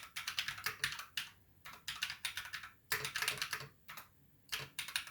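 Typing on a Drop Alt High Profile mechanical keyboard with Glorious Panda tactile switches lubed with G Lube: quick runs of keystrokes broken by short pauses, the longest run near the start and a short one near the end.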